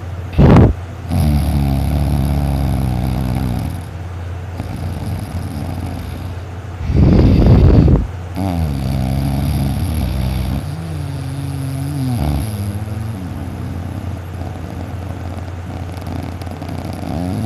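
Heavy snoring in deep sleep: a short loud snore right at the start, long droning breaths with a low buzzing tone, and a loud rasping snore about seven seconds in. From about eight to twelve seconds the buzzing tone bends up and down like a sleepy mumble.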